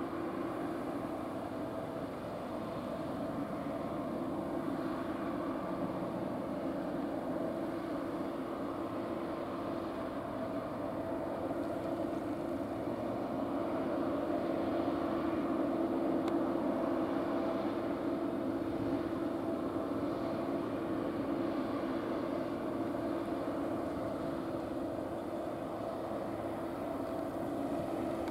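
Combine harvester working a field: a steady engine drone with a constant hum, swelling slightly about halfway through.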